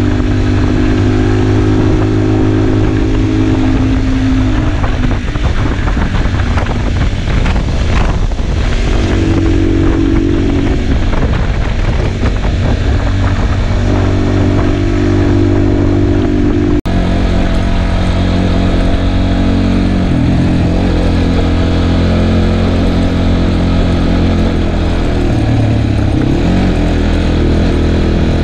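Motorcycle engine running under way, its pitch rising and falling with throttle and gear changes, over wind and road noise. The sound cuts out for an instant about two-thirds of the way through, then runs on at a lower, steadier pitch.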